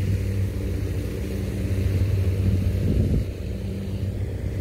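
A steady low motor hum, even in pitch, with a brief faint sound about three seconds in.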